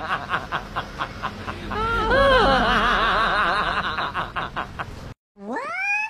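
A person laughing hard in rapid, wavering pulses, which cuts off suddenly about five seconds in. After a brief silence comes a short rising cry near the end.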